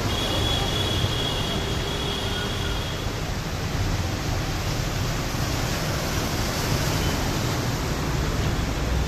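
Steady rushing noise of fast-flowing floodwater running down a street, with a low rumble underneath.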